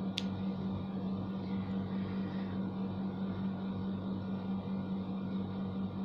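Steady low electrical hum with a constant hiss, as from a running fan or appliance motor. One short sharp snip of scissors cutting thread comes just at the start.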